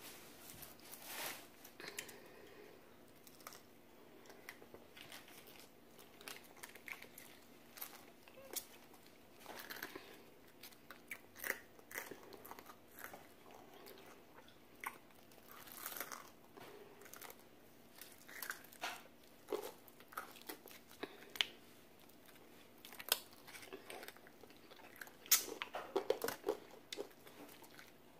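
Close-up mouth sounds of crispy Popeyes fried chicken being bitten and chewed: irregular sharp crunches of the breaded skin with quieter chewing between, the loudest crunches about three quarters of the way in.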